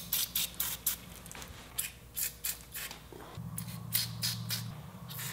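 Aerosol can of PB Blaster penetrating oil sprayed in a series of short hissing squirts, about a dozen of them, onto seized exhaust spigot screws on a motorcycle cylinder head.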